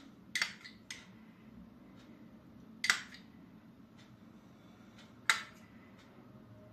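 A spoon clicking lightly against dishes four times, spaced out over several seconds, as salad dressing is spooned over a salad.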